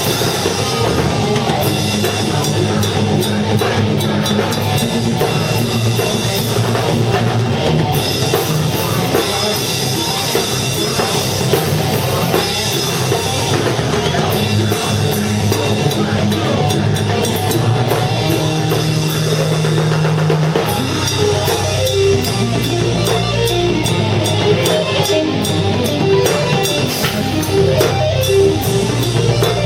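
Rock band playing live, with a drum kit keeping a steady beat under guitars and sustained low bass notes.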